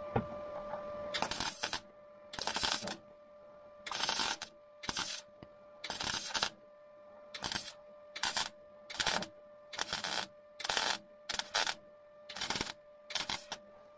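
MIG welder stitch-welding a steel strengthening plate onto a car floor: about a dozen short bursts of crackling arc, each under a second, with a steady hum underneath between them.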